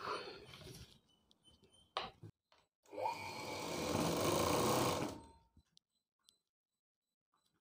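Sewing machine stitching a seam in one run of about two seconds, starting about three seconds in. The pitch rises as the machine picks up speed, then it stops. A single click comes about a second before the run.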